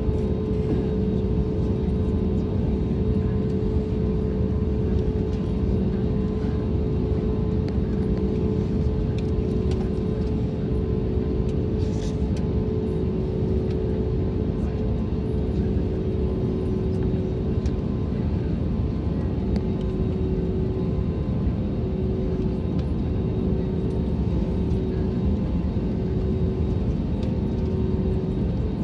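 Airbus A320neo cabin noise while taxiing: a steady low rumble from the engines at taxi power, with a pair of steady hums, one of which wavers in and out.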